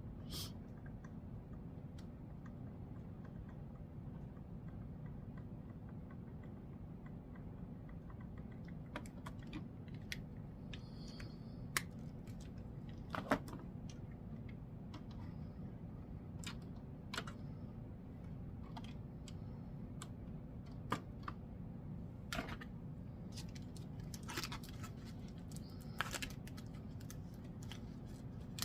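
Scattered light clicks and taps of hands handling plastic ink bottles and tank caps while refilling a printer's ink tanks. A steady low hum runs underneath.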